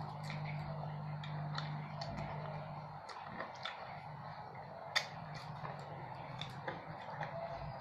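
Quiet eating sounds while eating with the hand from a steel plate: scattered small clicks and ticks, with one sharper click about five seconds in. A steady low hum runs beneath and drops out briefly about three seconds in.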